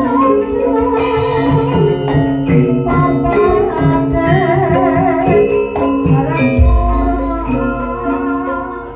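Live Javanese gamelan music: bronze metallophones and kettle gongs play held notes under a wavering melody line, with a bright crash about a second in. A deep low gong stroke comes about two-thirds of the way through and rings on.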